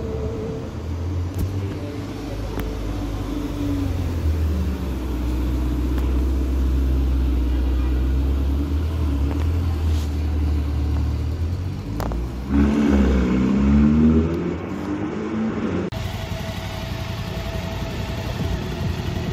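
Ferrari Portofino's twin-turbo V8 running with a deep, steady rumble as the car creeps off in traffic, then revving up and down briefly about 13 seconds in. After a sudden change near the end, a motorcycle engine idles steadily.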